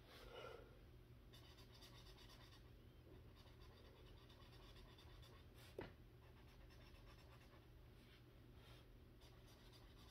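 Faint scratching of a felt-tip marker coloring on the paper of a coloring book, with a single click about six seconds in.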